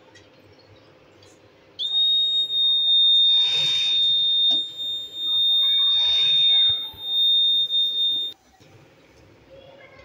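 Buzzer of a homemade gas and smoke detector sounding one steady high-pitched tone for about six and a half seconds, starting and cutting off suddenly.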